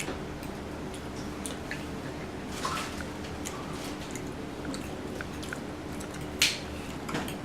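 People eating at the table: chewing and small clicks, with two louder short scrapes or smacks, one near the middle and one near the end, over a steady low hum.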